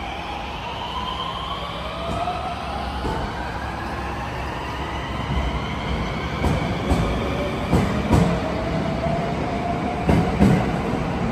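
A 521-series electric multiple unit pulls away from the platform. Its inverter and traction motors whine in several tones that rise steadily as it accelerates. From about six seconds in, the wheels clack over rail joints in quick pairs as the bogies pass.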